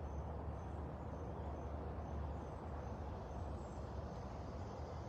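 Outdoor ambience: a steady low rumble with a faint, high, short chirp repeating about twice a second.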